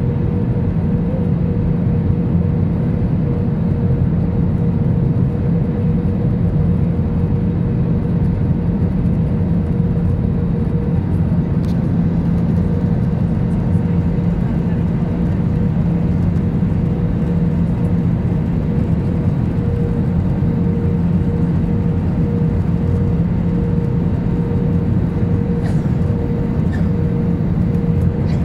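Airbus A320 cabin noise on final approach and landing: a steady rush of engine and airflow with a continuous hum, unchanged in level as the jet comes down onto the runway.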